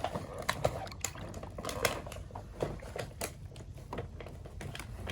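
Scattered small clicks and taps with soft watery squishes as a doll's hair is worked in a basin of water.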